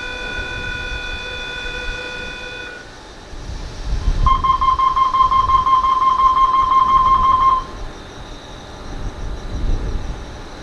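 Electronic warning tones from a double-deck suburban electric train standing at the platform: a steady multi-pitch tone for about three seconds, then about four seconds in a loud, rapid pulsing beep lasting some three seconds, typical of the doors-closing warning. A low rumble of the standing train runs underneath.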